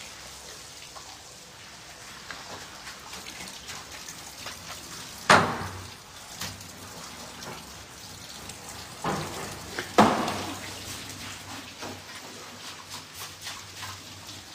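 Carp being cleaned and handled on a wet counter: small wet clicks and handling noise over a steady background, with three loud thumps, about five, nine and ten seconds in.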